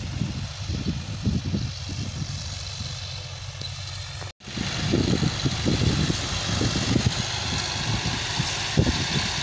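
John Deere tractor's diesel engine running steadily under load as it pulls a tillage implement through the soil, a low rumble. It cuts out for an instant a little over four seconds in and comes back louder.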